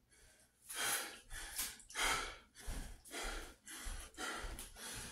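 A man breathing hard and fast through the mouth, out of breath after exercising, about seven heavy breaths in quick succession.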